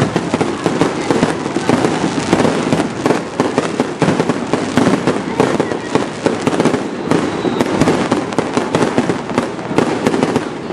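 Aerial fireworks exploding in a rapid, unbroken barrage of bangs and crackles.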